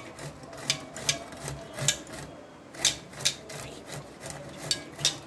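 Parwal (pointed gourd) being grated on a metal hand grater: repeated rasping strokes, about two a second, with a pause of about a second near the middle.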